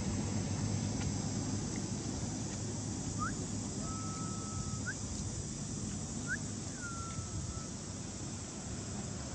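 Steady low outdoor rumble. Midway, a few thin whistled animal calls sound over it: short rising notes, one held level note and one falling note.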